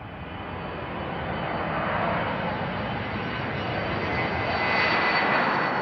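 Boeing jet airliner's engines, a broad rushing noise with a thin steady whine, swelling over the first couple of seconds, holding, then starting to fade near the end.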